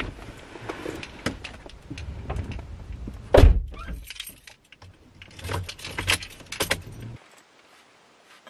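A bunch of car keys jangling and clicking in the hand inside a car, with a single heavy thump about three and a half seconds in. The handling noise stops after about seven seconds.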